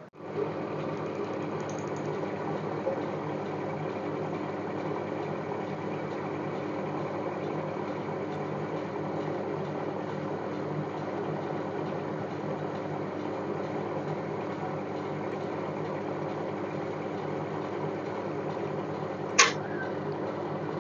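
Industrial buttonhole machine running steadily, driving its bobbin winder to wind thread onto a bobbin. There is a single sharp click near the end.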